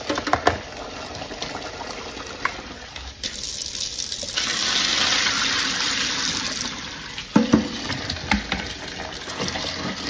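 Water pouring and splashing into a stainless-steel sink for a few seconds as soaked bird seed is tipped from a plastic tub into a strainer, draining off the soaking water. A spoon clicks against the plastic tub at the start, and a few knocks follow near the end.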